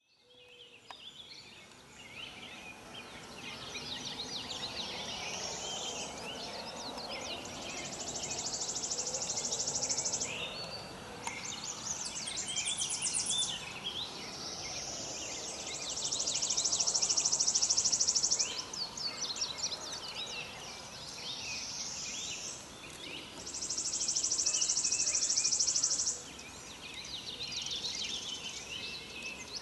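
Outdoor ambience of birds and insects. Many short bird chirps run throughout, and three times an insect's high buzzing call swells up and holds for about three seconds before cutting off; these buzzes are the loudest sound.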